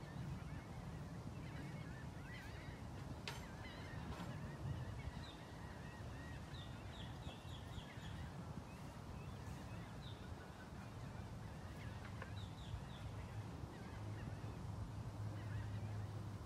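Birds calling outdoors in short chirping notes, some in quick runs of four or five, over a steady low hum that gets louder near the end.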